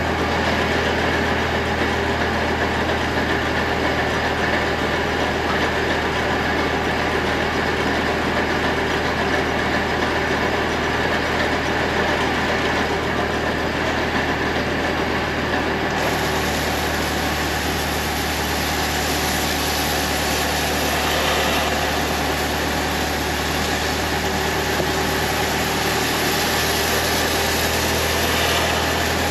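Harben sewer jetter truck running steadily: a constant low engine-and-pump drone with a hiss over it. About halfway through, the hiss turns brighter and higher.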